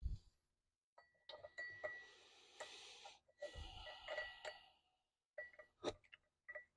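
Faint clicks, light knocks and scraping of metal overdrive parts being worked by hand as a tight-fitting part is eased, with a faint metallic ring in places and some breathing.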